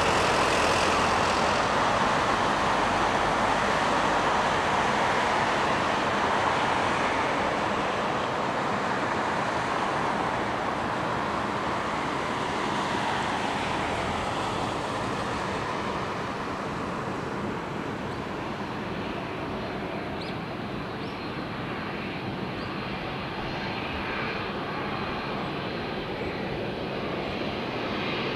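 Boeing 787-8 jet engines after landing: a broad airliner roar, loudest at first, that slowly fades and loses its hiss over the first half as the aircraft slows on the runway. It swells slightly again near the end as the plane rolls toward the listener.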